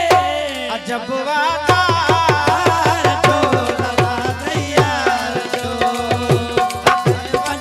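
Live South Asian folk music: a hand drum plays a quick, steady rhythm with deep strokes that drop in pitch. Over it runs a wavering melodic line that settles into held steady notes about halfway through.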